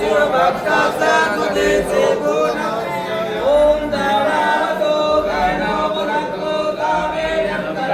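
A group of voices singing together, unaccompanied, with several pitches overlapping and running on without a break.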